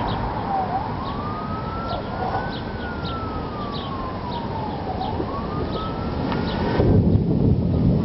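Emergency vehicle siren wailing in slow rise-and-fall sweeps, about two seconds up and two and a half down, heard over steady outdoor noise. A low rumble swells up about seven seconds in.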